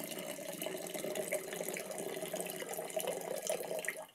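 Water poured from a plastic measuring jug into a glass jar, a steady pour that stops near the end.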